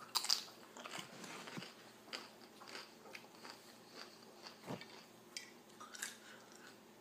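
A bite into a tortilla chip, then repeated small crunches as it is chewed with the mouth close to the microphone.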